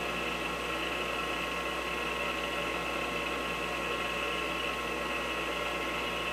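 Milling machine spindle running steadily with a constant whine, its end mill spinning free with no cut while the rotary table is being indexed to the next hex flat.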